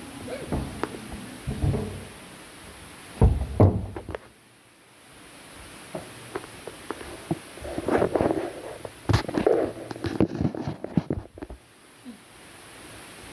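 Irregular knocks and thumps, the loudest a pair of thuds about three seconds in, then a busier cluster of knocking and clatter from about eight to eleven seconds.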